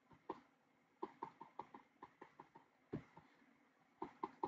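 Faint, irregular clicks and taps of a stylus on a tablet screen during handwriting, about a dozen short ticks.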